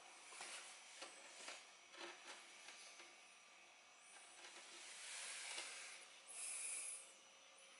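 Faint handling sounds from cleaning a small aquarium: a few soft taps and rubs, then two longer hissing swishes in the second half.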